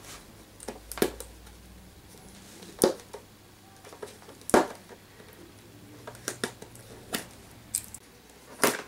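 Clear plastic blister packaging being handled and pried open by hand: scattered crackles and clicks of the stiff plastic, the sharpest about 3 and 4.5 seconds in and again near the end, with a run of smaller ones in between.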